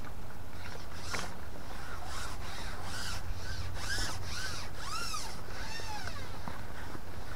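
Carbon fishing pole rubbing as it is slid hand over hand, making a run of squeaks that rise and fall in pitch, about two a second, over a steady low hum.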